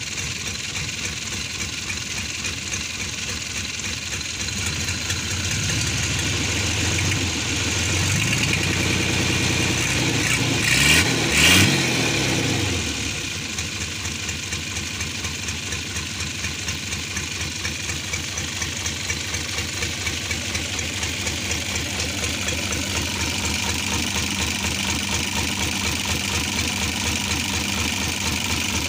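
Hino H07C inline-six diesel engine running out of the vehicle, idling with a steady rhythmic clatter. It is revved up from about five seconds in, peaks twice briefly near eleven seconds, and drops back to idle by about thirteen seconds. The seller calls its blow-by slight, checked at the open oil filler.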